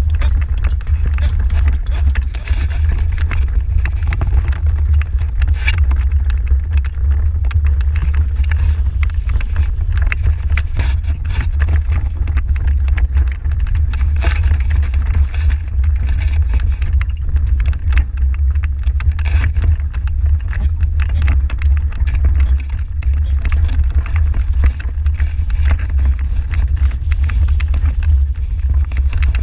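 Horse-drawn marathon carriage running at speed over grass: a steady low rumble with constant irregular rattling and knocking from the carriage, and wind buffeting the microphone.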